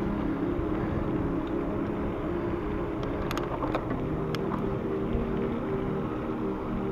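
Bicycle rolling along a paved path: steady tyre and road rumble with wind on the camera microphone and a low steady hum, broken by a few sharp clicks around the middle.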